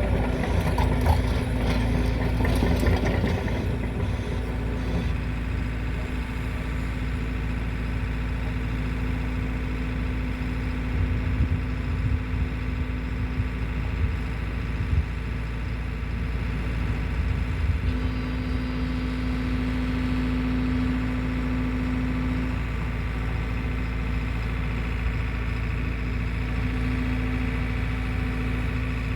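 Excavator's diesel engine running steadily, with a held tone that swells louder for a few seconds in the second half and again near the end. There is some clatter in the first few seconds.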